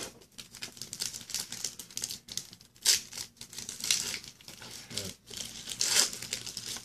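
Silver foil wrapper of a trading card pack crinkling and tearing as it is peeled open by hand, in irregular bursts, with the sharpest crackle about three seconds in.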